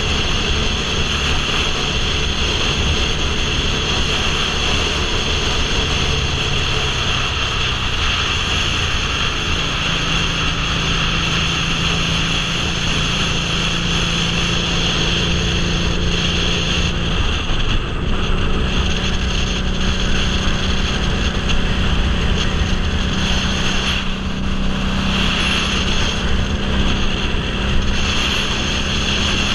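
Motorcycle running at highway speed, its engine note under heavy wind rush on a helmet-mounted microphone; the engine pitch steps up about ten seconds in and again near eighteen seconds.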